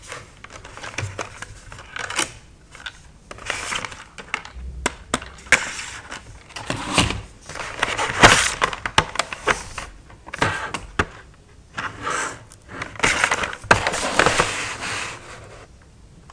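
Hands handling clear plastic highlighter boxes: a run of sharp taps and clicks on the plastic, with stretches of rubbing and sliding, loudest near the middle and again a little before the end.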